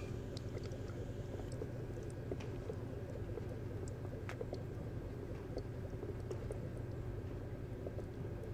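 Small aquarium pump running: a steady low hum with soft, irregular bubbling of water.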